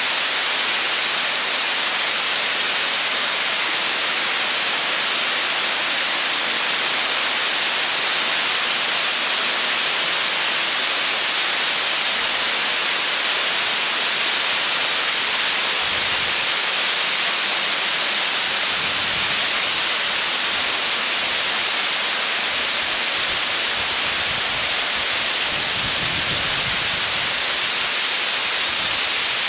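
Waterfall pouring down a rock face close by: a loud, steady rushing hiss. A few brief low rumbles come through in the second half.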